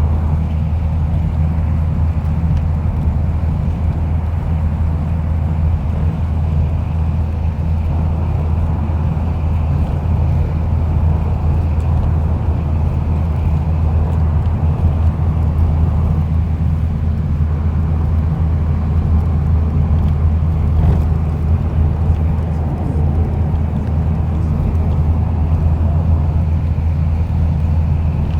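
Volcano rumbling: a steady deep rumble with a fainter hiss above it, unbroken and without distinct blasts.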